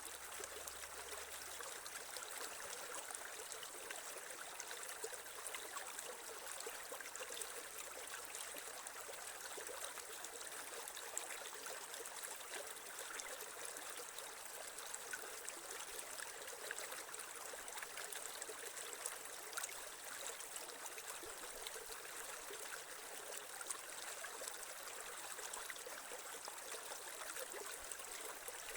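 Creek water flowing and trickling over stones: a steady babble with many small splashes and no change.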